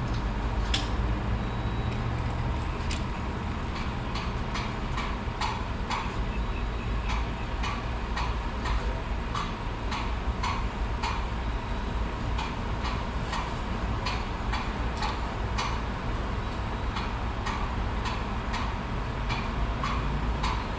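A regular mechanical ticking, about two ticks a second, that settles into its steady beat a few seconds in, over the steady low rumble of idling engines at a gas station.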